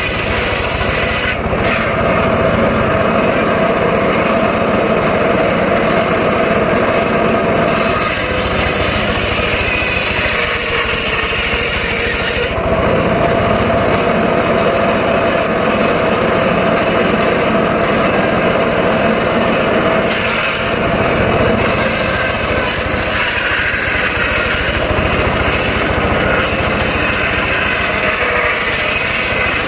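Homemade engine-driven circular saw running steadily, its blade cutting sengon wood: a harsher sawing noise comes in for about four seconds a third of the way in, and again for the last several seconds.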